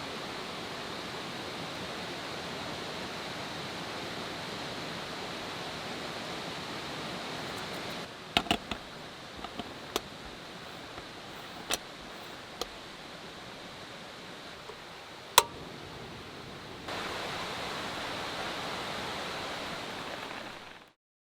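Steady rushing outdoor ambience. About eight seconds in, a handful of sharp clicks and knocks begin, the loudest near the end of that stretch. The ambience fades out at the very end.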